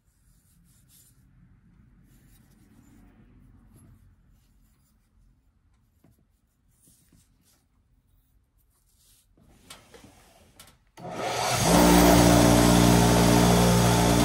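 Faint rubbing and handling of metal tools. About eleven seconds in, a motor spins up over half a second into a loud, steady hum that keeps running.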